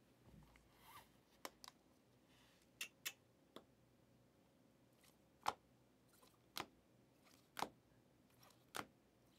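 Panini Prizm football cards being flicked one at a time from the front to the back of a hand-held stack: short sharp snaps of stiff card, irregular at first, then about one a second.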